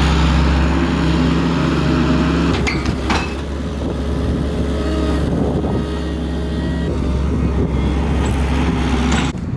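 A large engine running steadily, with a couple of sharp knocks about three seconds in. The engine sound stops abruptly near the end.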